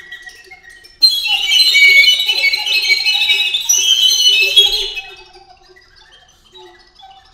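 Trio of recorders playing contemporary music. About a second in, a loud dense cluster of many shrill high tones breaks out over lower held notes and lasts about four seconds. It then drops back to quiet, scattered tones.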